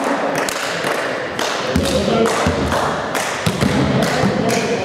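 Scattered thuds and taps echoing in a large sports hall, the sounds of balls, feet and hands during a break between volleyball rallies.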